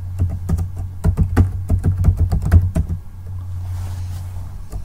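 Computer keyboard being typed on: a quick run of keystrokes for about three seconds as a short command and a password are entered, then only the odd key. A steady low hum runs underneath.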